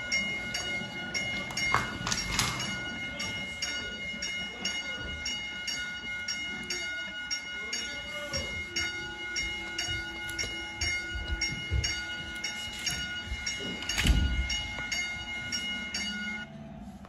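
Electronic toy railroad crossing sounding its warning signal: steady electronic tones with a ding repeating about twice a second, which cut off suddenly near the end. A loud knock about 14 seconds in.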